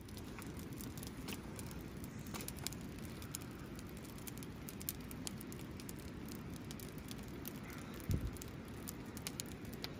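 Wood campfire burning, crackling with many small sharp snaps and pops over a low steady rumble. A single dull thump about eight seconds in.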